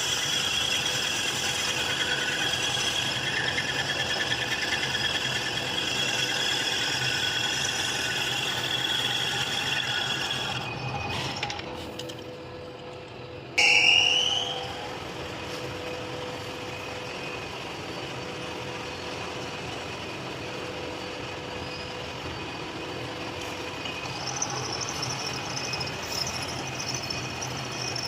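Machine tool running while cutting metal, with a steady whine. About halfway through it dips, then a sudden loud burst with a rising squeal, and it settles into a quieter steady run.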